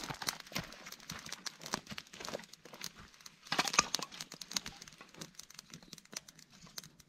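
Small wood campfire crackling with scattered sharp pops while split sticks of kindling are handled and laid on it. The loudest rustle and clatter comes about three and a half seconds in.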